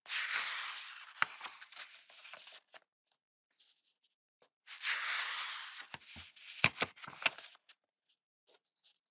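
Pages of a paper book being turned by hand, twice about four and a half seconds apart: each turn is a papery rustle of about two seconds with a few crisp snaps as the page flips over.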